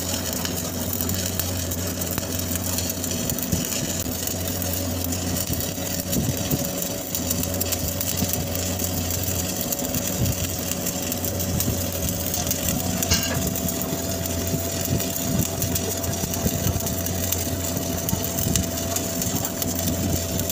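Shielded metal arc (stick) welding arc crackling steadily while laying the capping pass on a 10-inch carbon steel pipe, over a steady low engine-like hum of running machinery. There is one brief sharp click about 13 seconds in.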